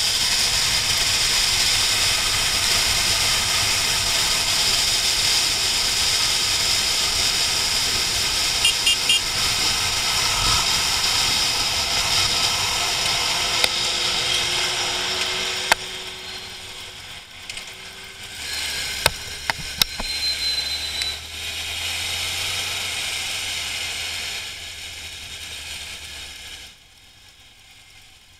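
Inline-four sport motorcycle at speed, heard through its own camera: a loud, steady rush of wind and engine. About halfway through it eases off sharply to a quieter engine hum with a few clicks as the bike slows. It drops away further near the end.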